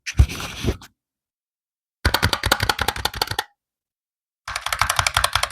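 Razer Huntsman V3 Pro keyboard with analog optical switches being typed on fast: three short bursts of rapid keystroke clicks, each about a second long, with brief pauses between them.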